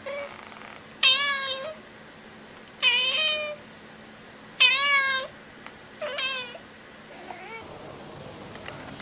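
A cat meowing repeatedly: four loud, drawn-out meows about one and a half seconds apart, with fainter meows near the start and near the end.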